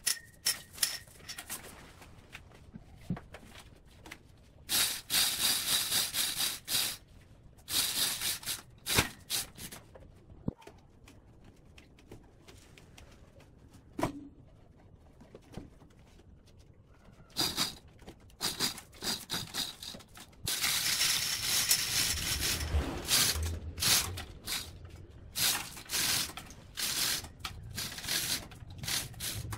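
Hand chain hoist being worked, its chain rattling and clicking in bursts with a quiet stretch in the middle, as a heavy load is lowered; the last third is busiest.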